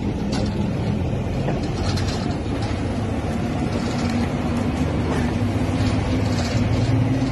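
Steady engine hum and road noise of a moving vehicle, heard from inside it.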